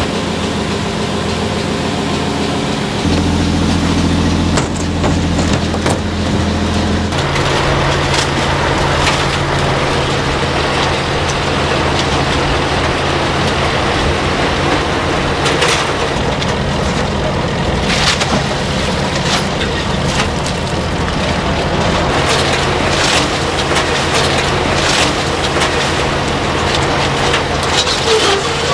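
A motor running steadily, its pitch shifting about three seconds in and again about seven seconds in. From the second shift on it sits under a constant rushing, clattering noise with scattered hard knocks, like shells tumbling and water pouring.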